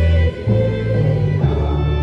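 Instrumental break in a choir hymn's accompaniment: sustained string-like chords over a bass line that steps to a new note about once a second.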